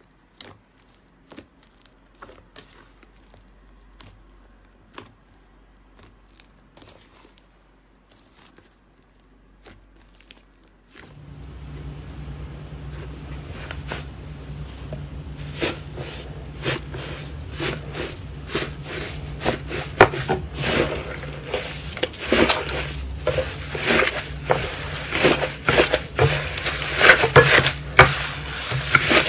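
Slime being squeezed and poked by hand, making sticky crackling and popping clicks. At first the clicks are soft and sparse. About a third of the way in they become much louder and denser, over a low steady hum.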